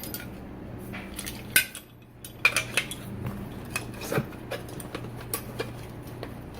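Scattered metallic clinks and knocks as a collapsible shovel is pulled out of the bag and handled, over a low steady hum.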